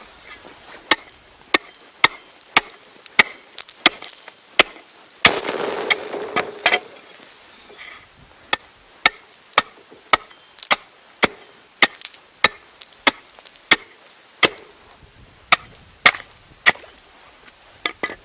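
Hatchet chopping a hole in clear, thick new ice: sharp blows about two a second, in two runs with a short noisy stretch between them.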